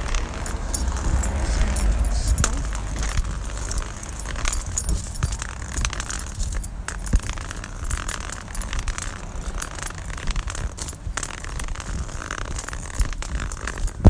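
Handling noise from a phone voice recorder carried while walking: many small clicks and rustles over a steady low rumble.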